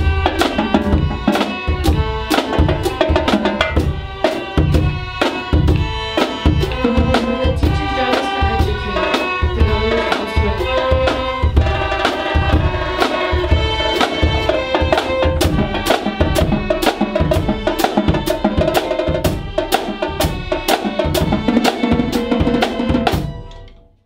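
Violins playing a melody over a marching bass drum and snare drums beating a steady rhythm. The music fades out near the end.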